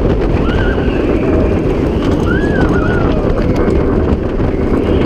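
Vekoma Bermuda Blitz steel roller coaster train running fast along its track, a steady heavy rumble of wheels and wind buffeting the on-board microphone. Short high cries rise and fall over it a few times.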